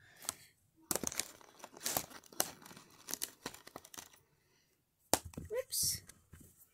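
Plastic toy packaging crinkling and crackling as it is handled and torn open: a run of sharp crackles and clicks for about three seconds, then a brief rustle near the end.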